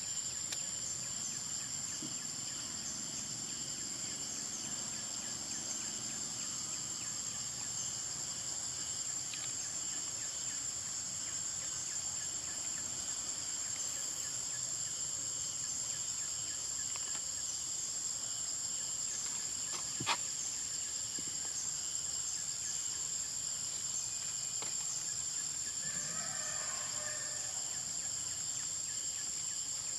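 Steady high-pitched drone of insects in forest, with a single sharp click about twenty seconds in.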